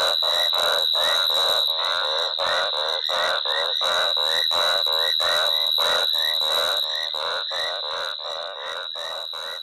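Frogs calling in a fast, evenly repeated chorus of about three calls a second, over a steady high insect trill; the sound begins to fade near the end.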